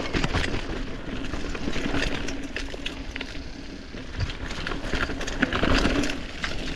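Mountain bike riding over a wet, muddy trail: tyre noise on mud and the bike rattling over rough ground, with many sharp clicks and knocks throughout.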